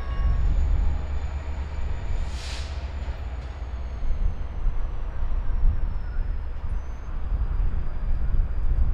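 Two Norfolk Southern diesel locomotives moving slowly, giving a steady low engine rumble. A brief hiss comes about two and a half seconds in, and a faint high whine slowly falls in pitch.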